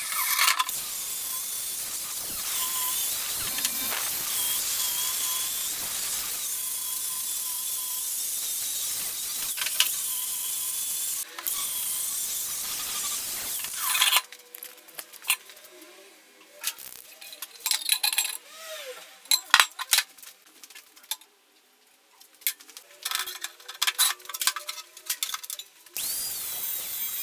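Angle grinder running against sheet steel with a steady high whine for about half the time, then a stretch of scattered metal clinks and knocks as steel parts are handled and tapped. Near the end the grinder runs on a steel bar again, its whine falling away as it spins down.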